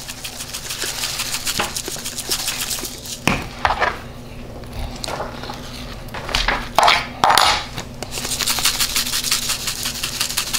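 Steak seasoning shaken from a shaker over a raw venison backstrap, the granules rattling in quick rapid pulses. Partway through the shaking stops for a few knocks and thumps as the meat is lifted and turned over on the plastic cutting board, the loudest of them a little after the middle. Then the shaking starts again.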